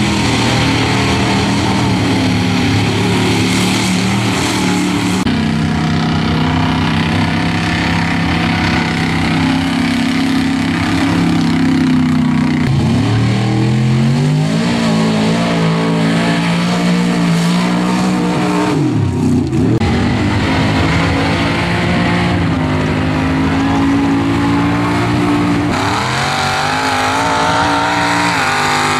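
Lifted pickup truck's engine revving hard as it drives through a mud bog pit, its pitch climbing and falling, with two sharp drops in engine speed in the middle before it winds up again.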